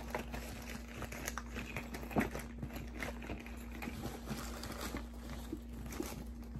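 Hands rummaging through small items while searching for a pin: irregular rustling and crinkling with light clicks and knocks, over a steady low hum.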